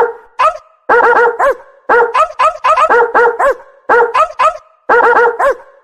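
A small dog barking in quick runs of three or four high-pitched yaps, the runs about a second apart.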